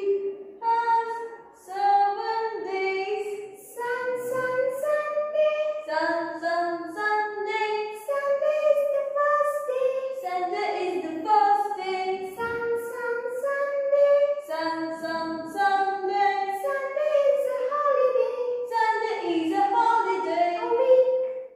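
A children's song: a high voice singing a melody in held notes that step up and down in pitch.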